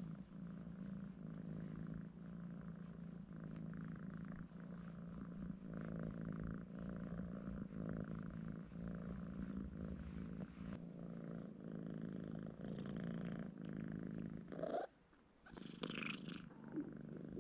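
Domestic cat purring steadily while being stroked under the chin and neck; the purr breaks off briefly about fifteen seconds in.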